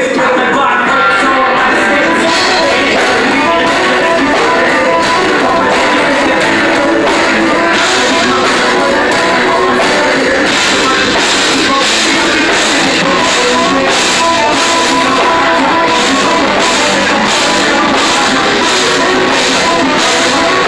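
Live band playing loud: electric guitar and drum kit keeping a steady beat, with a singer.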